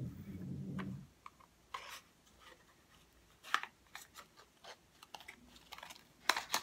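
Scratching and small clicks of a cardboard cosmetics carton being pried and cut open with a pointed tool, with a few sharper clicks about halfway through and near the end.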